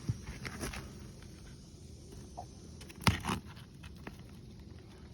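Two sharp knocks about three seconds in, the first loud and the second softer just after it, over a faint steady outdoor background.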